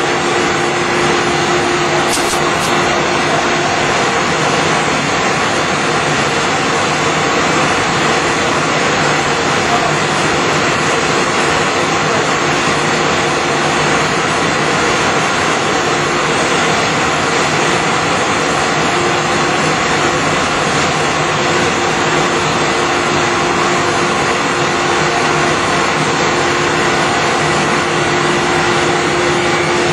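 Dry offset cup and pail printing machine running: a steady, dense mechanical noise from its roller train, with a faint hum that drops out for a while in the middle.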